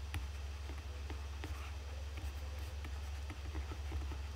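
Faint taps and scratches of a stylus handwriting words on a digital writing surface, a stroke every fraction of a second, over a steady low hum.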